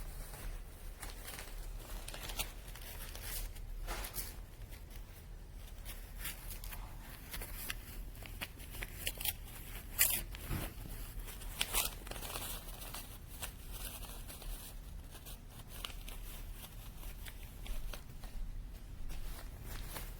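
Irregular clicks and rustling over a steady low hum, with a sharper click about ten seconds in.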